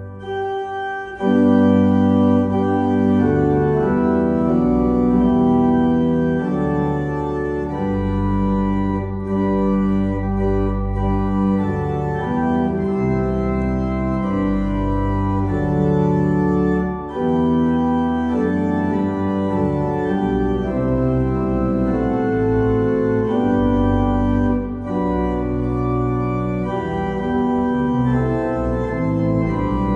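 Church organ playing full sustained chords over a deep pedal bass, the chords changing every second or so. A short break about a second in leads into a louder passage.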